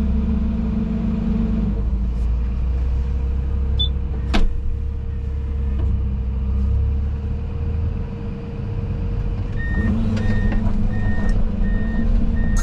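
Heavy diesel machinery running steadily, with one sharp knock about four seconds in. From about ten seconds in, a reversing alarm beeps about twice a second.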